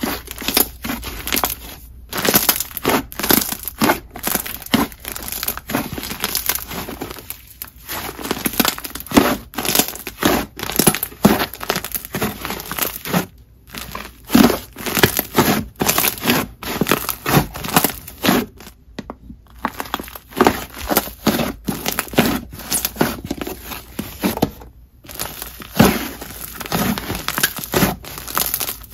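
Hands squishing, stretching and folding a creamy clay-and-jelly slime, giving a dense, irregular run of wet clicks and small air-pocket pops. There are a few short pauses as the slime is regripped.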